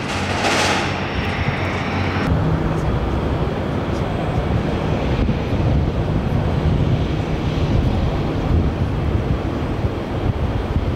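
Boeing 737 Classic's CFM56 jet engines running loud, a steady rush of noise. A thin high whine cuts off about two seconds in, leaving a deeper rumble.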